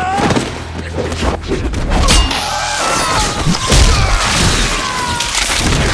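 Fight-scene sound effects: a rapid run of punch and body-impact hits, heavy booms and crashes. A few high tones slide downward midway through.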